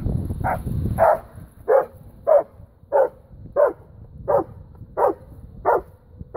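A young dog barking steadily and rhythmically, about one and a half barks a second, at a helper hidden in a blind: the bark-and-hold of protection training. A low rumble sits under the first second.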